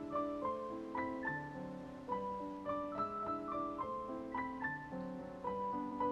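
Background piano music: a gentle melody of separate notes over low sustained chords.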